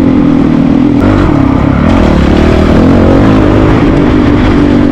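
Single-cylinder dual-sport motorcycle engine running hard on the trail, its note dropping briefly about a second in as the throttle eases, then picking back up and holding steady.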